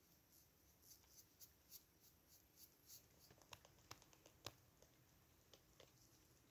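Near silence: faint, repeated swishes of a bristle brush spreading finish on a wooden knife handle, then a scatter of faint light clicks and taps.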